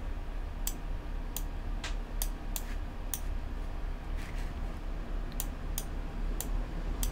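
Irregular clicks of a computer mouse and keyboard, about a dozen of them spread over several seconds, over a low steady hum.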